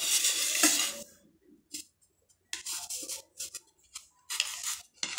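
Knife sawing through the crusts of a slice of white bread, in about four short bursts of strokes with brief pauses between.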